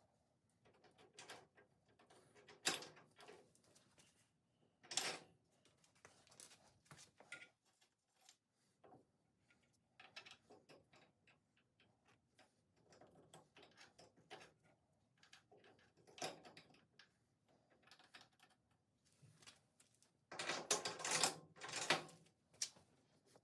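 Scattered clicks and knocks of parts and hand tools being handled while body-mount bushings are fitted, with a denser run of knocks near the end.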